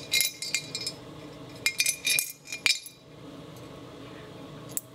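Two nickels clinking against the inside of a metal piggy bank as they are shaken and tipped out. There is a cluster of ringing metallic clinks at the start and another about two seconds in, then a single faint click near the end.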